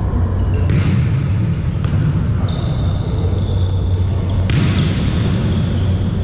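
Volleyball being struck on an indoor court: three sharp smacks with hall echo, about a second apart early on and another past the middle, over a steady low hum.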